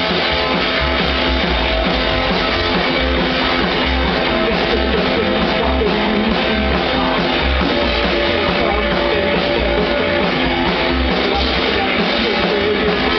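Live band playing: upright double bass, electric guitar and drum kit, with the bass giving a steady, regular low pulse under the guitar.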